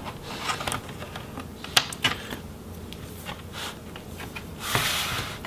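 Scattered light plastic clicks and ticks as a pry tool works along the seam of a laptop's plastic bottom case, unclipping its snap-in retainers. A short rustling scrape comes a little before the end.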